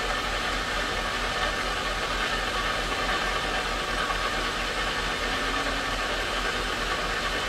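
Stone-polishing flat lap running steadily, its grey disc spinning in a wet slurry tray: an even motor hum with a steady hiss.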